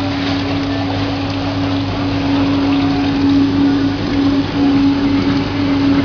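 Arstarco commercial dishwasher running: a steady pump motor hum under the hiss of water spraying inside the machine.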